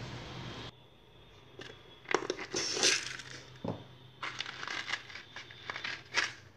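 Dried tissue-paper papier-mâché shell crackling and crinkling in irregular bursts as a hand works inside it, pulling the deflated balloon mould free from the hardened paper. A steady hiss cuts off abruptly under a second in.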